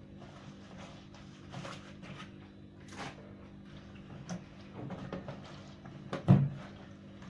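Scattered knocks and clatter of parts of a Sharpgold mini washing machine being handled, with one louder thump about six seconds in.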